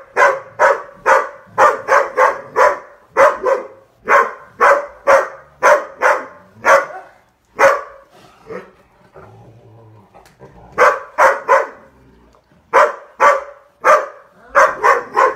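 Dogs barking in quick, repeated sharp barks, about two or three a second, during excited play; the barking stops for a couple of seconds past the middle, then starts again.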